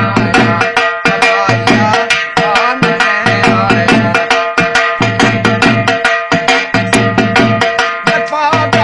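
Dhol, a double-headed barrel drum, played in a fast folk rhythm: rapid sharp strokes on the treble head, several a second, over deep bass-head strokes that come in runs of about a second with short breaks between them.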